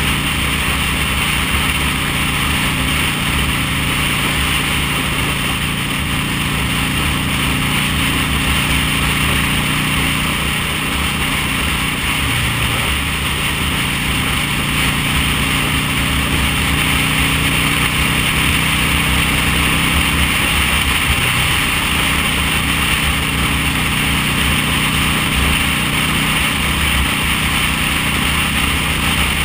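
V-twin cruiser motorcycle engine running steadily at cruising speed, with the pitch shifting slightly a couple of times, under a steady rush of wind and road noise over the bike-mounted microphone.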